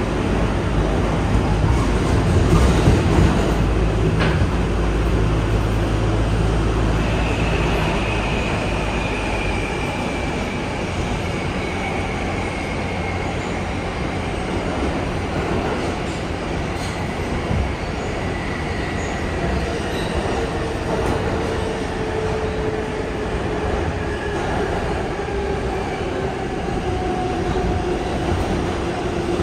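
An R142A subway train running on the rails. A heavy low rumble eases off about a third of the way in, then a motor whine falls slowly and steadily in pitch as the train slows.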